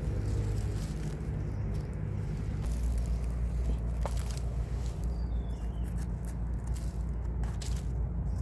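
Dry leaf litter rustling and crackling in scattered short bursts as a hand digs through it and pulls up a mushroom, over a steady low rumble.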